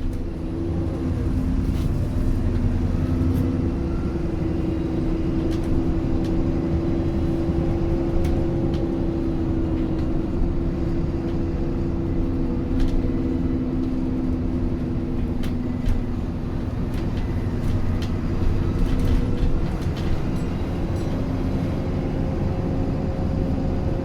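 Alexander Dennis Enviro400 Trident double-decker bus running, heard from on board: a steady engine drone with a constant low hum and scattered light rattles and clicks.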